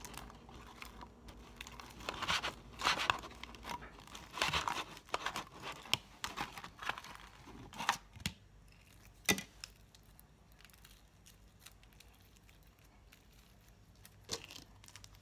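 Freshly made borax sequin slime being peeled off a paper plate by hand, giving bursts of sticky tearing and crinkling as the plate flexes. A couple of sharp knocks come about eight and nine seconds in, and it goes quieter for a few seconds before one more burst near the end.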